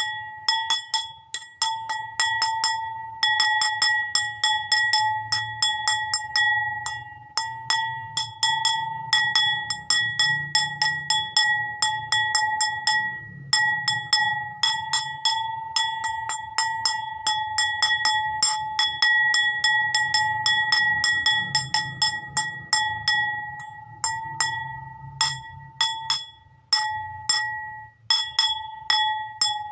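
A bowl struck over and over, each tap ringing with a clear, steady high tone. The taps come irregularly, at times several a second, with a few brief pauses.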